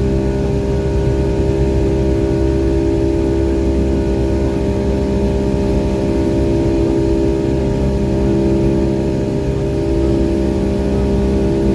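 Steady loud cabin noise of a Boeing 757's Rolls-Royce RB211 jet engines heard from inside the cabin: a constant rush with several steady engine tones droning over it.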